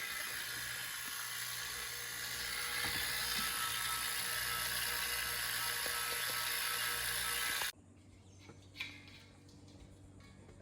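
A steady high hissing whir that cuts off suddenly about three-quarters of the way through, followed by quiet with one faint knock.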